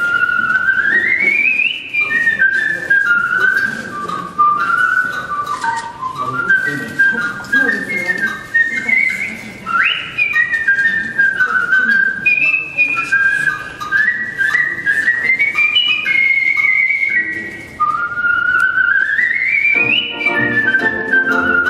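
Solo human whistling of a melody into a microphone: a single bright line of notes with long sweeping upward slides into phrases and one sharp upward swoop about halfway through. An accompaniment of sustained lower notes comes in near the end.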